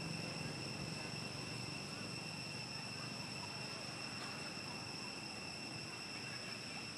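Steady high-pitched insect drone, one unwavering tone with its overtones, over a low background rumble.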